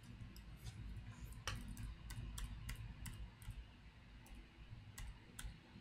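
A string of about a dozen light, irregularly spaced computer clicks as presentation slides are clicked through, over a faint low hum.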